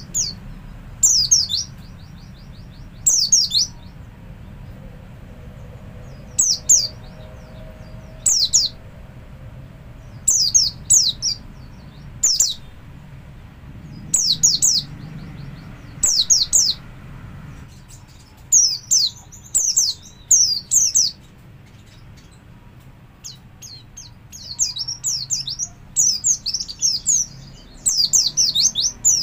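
White-eye (pleci) singing in the ngalas style: short bursts of high, quickly falling chirps every second or two, coming faster and closer together near the end.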